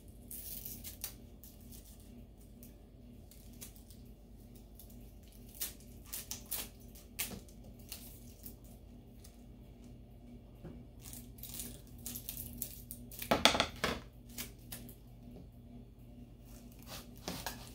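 Scissors snipping tape and strips of tape pulled and pressed onto sublimation paper on a stainless bowl: short, scattered handling sounds. The loudest, a tearing sound lasting under a second, comes about two-thirds of the way through.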